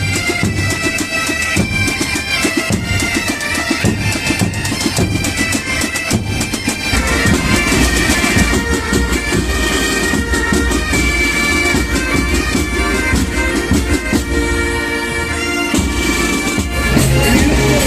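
Bagpipes playing a melody over their steady drones, with drum beats underneath.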